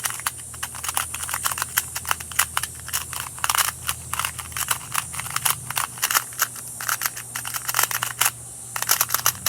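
A new 2x2 speed cube being turned quickly in the hands: a fast, irregular run of small plastic clicks as its layers snap round, the cube turning smoothly.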